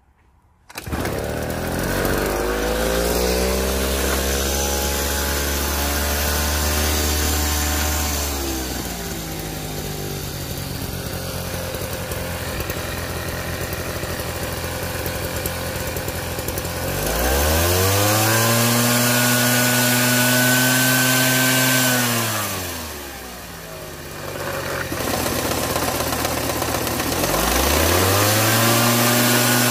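Two-stroke engine of a large hedge trimmer running and being revved: it comes up about a second in, then three times the pitch rises, holds for several seconds and falls back to idle.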